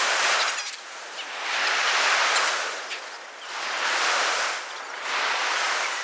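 Ocean surf breaking and washing up a pebble beach, swelling and fading in slow surges about every two seconds.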